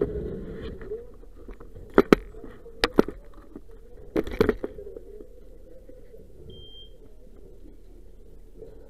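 Several sharp knocks and clatters between about two and five seconds in, from gear bumping against a body-worn camera as the wearer moves. About six and a half seconds in comes one short, high electronic beep. A steady low hum runs underneath.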